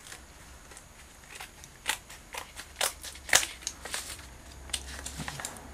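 Wallpaper scissors snipping and crinkling at the foil pouch casing of a swollen LiFePO4 battery cell: a string of irregular sharp snips and crackles starting about a second and a half in, the loudest about two and three and a half seconds in.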